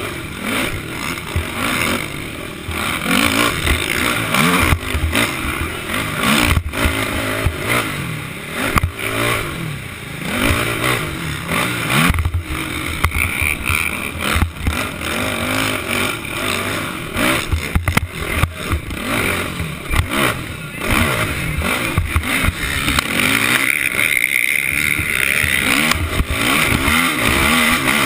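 Racing quad (ATV) engine revving hard and easing off again and again through the corners and straights of a dirt motocross track. It is heard close up from a helmet-mounted camera, mixed with rushing noise.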